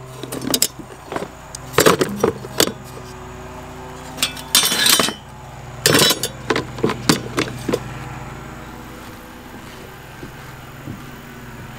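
Galvanized steel hurricane-tie brackets clinking and rattling against each other in plastic tubs as a hand picks through them. This comes in several short clatters, with a longer rattle about halfway through. A steady low hum runs underneath.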